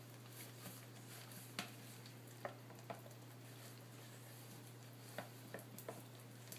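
Faint, scattered taps and clicks of a utensil stirring soap batter in a small container, over a steady low hum.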